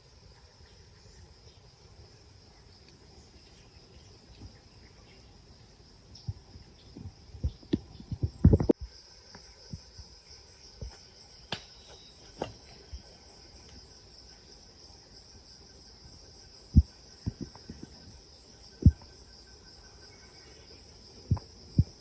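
Steady high-pitched chirring of crickets or other insects, with scattered dull thuds and knocks, a cluster of them about a third of the way in and a few more near the end.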